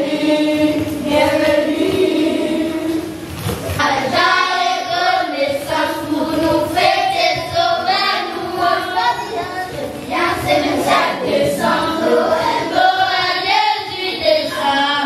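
A group of children singing together into a microphone, with a brief pause about three seconds in before the next phrase.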